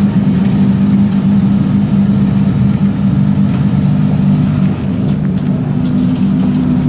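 Aston Martin One-77's 7.3-litre V12 idling steadily while the car creeps slowly down a transporter ramp.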